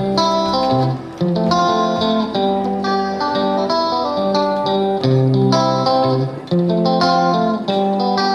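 Background music: plucked guitar playing a melody of short notes.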